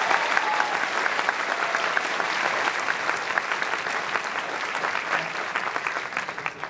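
Large audience applauding, a dense spatter of many hands clapping that dies away near the end.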